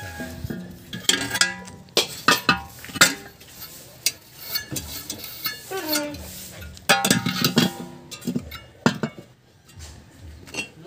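Steel parts and tools clinking and knocking while a new wheel hub bearing is worked into a steering knuckle and a heavy steel plate is handled. There are sharp metallic clinks, bunched in the first three seconds and again around seven seconds.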